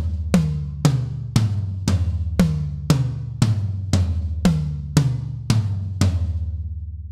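Low-tuned, unmuffled Tama Starclassic Performer toms with clear double-ply Emperor batter heads, struck about twice a second, each hit with a sharp, defined attack and a low ring. The last hit, about six seconds in, is left to ring out and fade.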